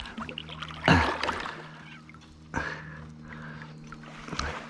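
Water splashing and knocking around a kayak: three short splashes, the loudest about a second in.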